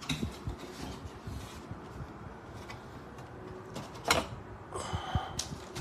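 Plastic-wrapped metal TV wall-mount parts being handled in their cardboard box: rustling and light knocks, with a sharp knock about four seconds in and a short squeak just after.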